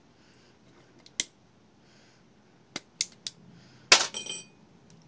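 Electric starter motor being reassembled: sharp metal clicks as the armature is pushed into its magnet housing, then a loud snap with a short metallic ring about four seconds in.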